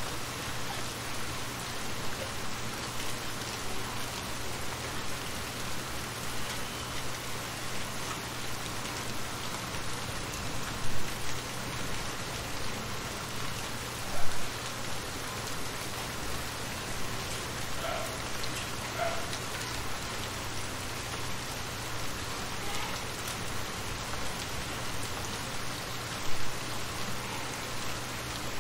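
Steady rain falling on shallow water over stones: a dense, even patter of drops with scattered small plinks, a faint low hum underneath, and three brief louder bumps along the way.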